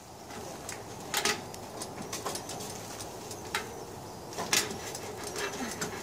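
Charcoal fire under a whole spit-roasting pig: a steady low hiss with about five sharp crackles and pops scattered through it.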